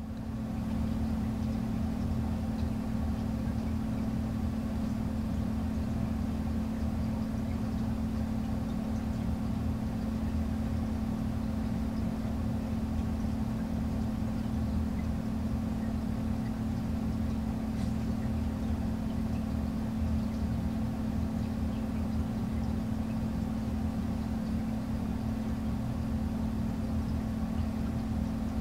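Steady low mechanical hum at one constant pitch, unchanging throughout.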